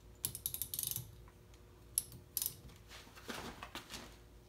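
Socket ratchet clicking in quick runs as it turns the forcing screw of a pulley puller against a tight water pump pulley, with a rougher metal scrape about three seconds in.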